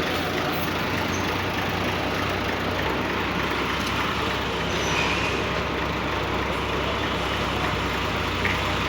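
Steady roadside traffic noise with the continuous low hum of heavy vehicle engines.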